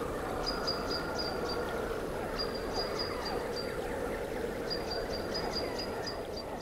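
A bird chirping in quick runs of about half a dozen short high notes, a run every two seconds or so, over a steady background hum of outdoor ambience.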